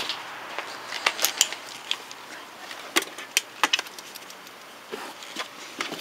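Scattered light clicks and clinks of small hard objects being handled, coming irregularly in short clusters over a faint steady hiss.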